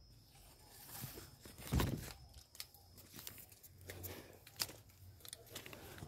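Dry leaves and brush crackling and rustling in scattered bits, with one dull thump about two seconds in.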